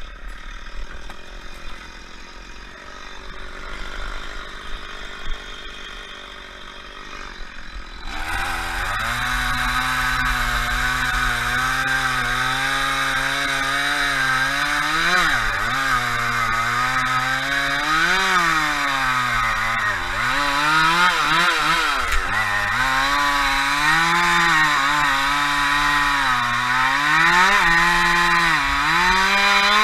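Chainsaw running quietly for about the first eight seconds, then at high revs. Its pitch dips and recovers again and again as the chain loads up in the cut.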